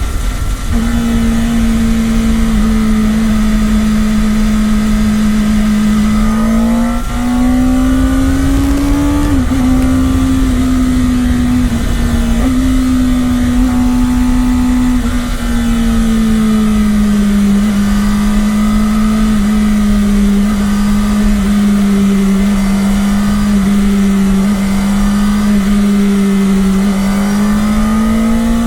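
Kawasaki Ninja ZX-10R's inline-four engine running steadily at a cruise, its pitch rising a little about seven seconds in, dropping back a couple of seconds later, and rising again near the end, over a constant rush of wind and road noise.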